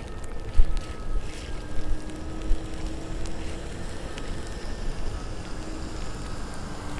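Wind buffeting the microphone while riding a KingSong S16 electric unicycle, with a few sharper gusts in the first half. Under it the hub motor gives a faint whine that drifts up and down slightly in pitch with speed.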